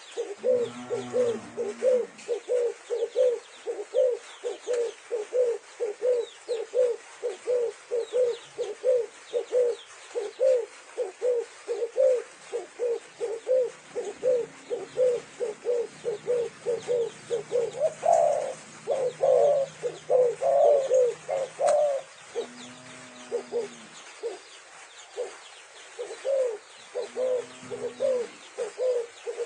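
Several doves cooing: a fast, even run of short coos, about two to three a second, with a lower, longer coo from another dove about a second in and twice near the end.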